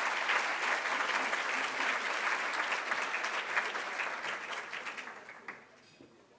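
Large audience applauding, the clapping thinning out and fading away over the last two seconds.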